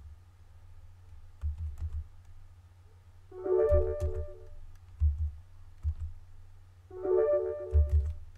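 A short electronic chime of several notes sounds twice, about three and a half seconds in and again near the end, as each blank of the exercise is filled in. Scattered keystroke clicks and low thuds from a computer keyboard fall between the chimes.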